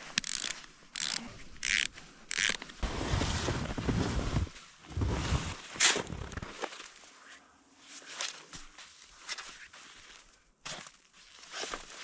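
Tubbs snowshoe bindings being unfastened with a few short clicks and snow crunches. Then a shovel digs and scrapes into deep snow, with a longer stretch of rough crunching digging and later lighter scrapes.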